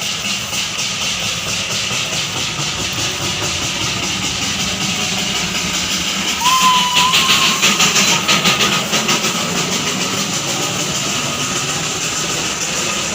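Darjeeling Himalayan Railway toy-train steam locomotive chuffing in a rapid, steady rhythm, with a short whistle about six and a half seconds in. The chuffing grows louder for a couple of seconds after the whistle.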